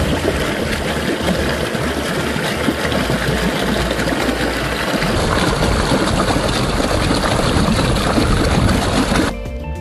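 Mountain stream rushing and splashing over boulders, a steady, loud rush of water that cuts off near the end.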